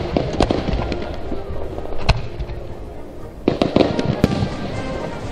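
Aerial firework shells bursting: sharp bangs, a few in the first half second, a lone one about two seconds in, and a quick cluster of bangs from about three and a half seconds on.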